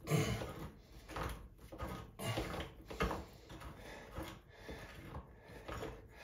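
Irregular scraping and knocking of a metal tube socket being twisted against a stuck cartridge retainer in a brass tub-filler valve body; the retainer does not budge.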